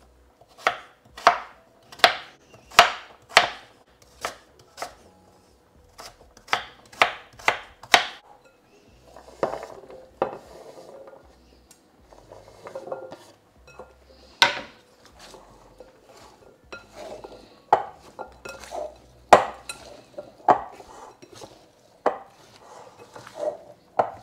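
Knife chopping sweet potato into small cubes on a chopping board: a steady run of sharp knocks about two a second for the first eight seconds, then scraping and scattered single knocks.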